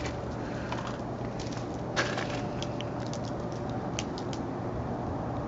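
Footsteps crunching on icy snow: scattered faint crackles with a couple of sharper cracks, about two and four seconds in, over a steady low hum.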